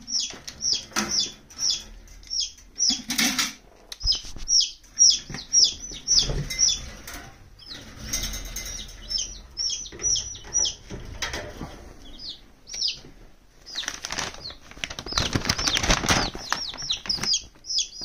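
Baby chicks peeping non-stop: rapid high, falling cheeps, several a second, with a stretch of rustling and scuffling about three-quarters of the way through.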